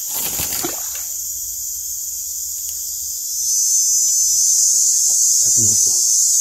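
High, steady chorus of forest insects, swelling louder about three seconds in. A brief rustle at the very start.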